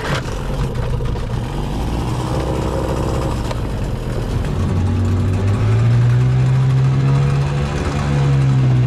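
Suzuki 9.9 outboard motor starting up and running, on its first run after sitting unused. It catches right at the start, runs steadily, revs up about halfway through and eases back near the end.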